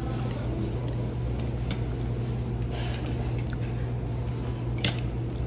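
Someone chewing a mouthful of noodles, with faint clicks of chopsticks against a ceramic bowl and a sharp click near the end, over a steady low hum.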